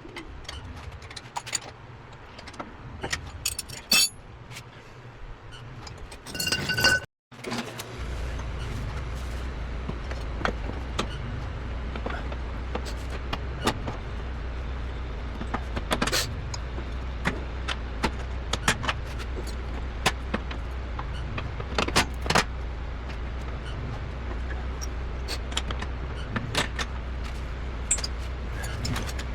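Metal clinks and clicks of tools and parts being handled. After a cut about seven seconds in, a steady low engine hum sets in, with scattered metallic clinks over it.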